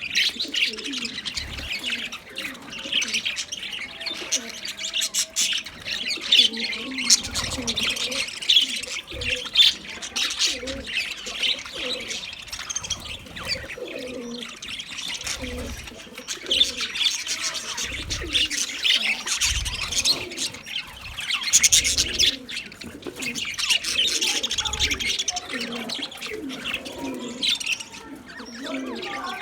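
Budgerigars chirping and warbling nonstop: dense high twittering with lower, wavering chatter underneath.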